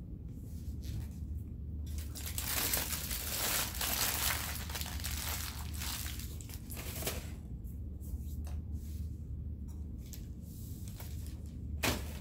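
Food wrapping being crinkled and crumpled by hand, heaviest for about five seconds starting two seconds in, then lighter scattered rustles and one sharp crinkle near the end, over a steady low hum.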